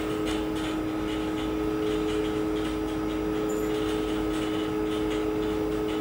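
Steady mechanical hum of plant-room equipment around a running water heater: two steady tones over a low rumble, with a few faint ticks.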